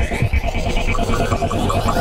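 Electronic trance music with a fast, steady, pulsing synthesizer rhythm.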